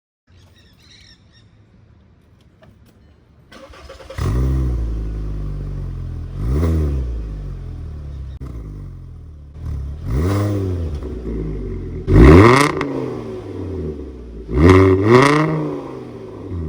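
VW Jetta MK6 engine cranked and started about four seconds in, then revved four times through its new aftermarket muffler with an electronic exhaust valve. Each rev rises and falls back, and the third is the loudest.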